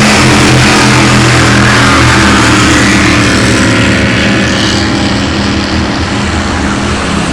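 Racing boat engines running loud at speed, a steady low engine note over a wash of noise that eases off slightly in the last few seconds.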